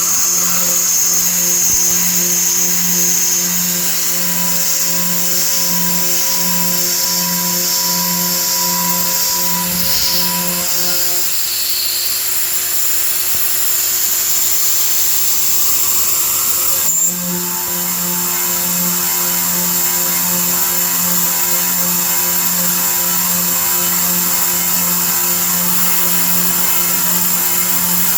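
CNC milling machine running, its spindle giving a steady high whine over a low hum that pulses about twice a second. The pulsing hum drops away for a few seconds in the middle and returns after a brief click.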